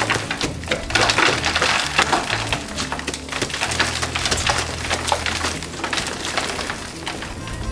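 Dried earthen wall being broken away by hand, the clay crumbling and falling in many small cracks and knocks, thickest in the first few seconds, over background music with a steady bass line.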